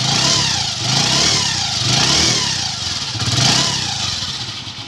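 iSmart 110 motorcycle's single-cylinder 110 cc four-stroke engine being revved in repeated swells, about four blips of the throttle, easing off near the end. The engine has just been rebuilt with a new timing chain kit and tensioner, and its running sound is now smooth, like it comes from the factory.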